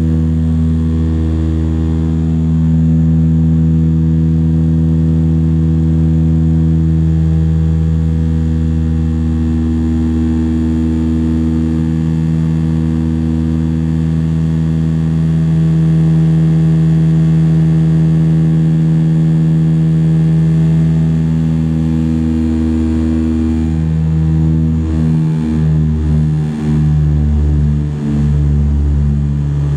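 Cabin drone of a de Havilland Canada Dash 8-100's twin turboprop engines and propellers, a steady, loud, deep hum made of several low tones. In the last few seconds the tones shift slightly and the drone begins to pulse unevenly.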